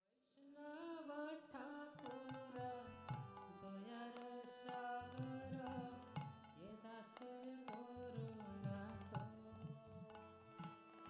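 Background Indian devotional music: a tabla keeps a rhythm under a gliding melody.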